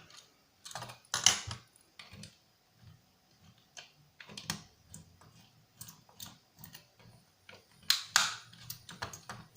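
Irregular small clicks and taps of the plastic quadcopter drone body being handled and worked on with a small screwdriver, the loudest knocks about a second in and around eight seconds.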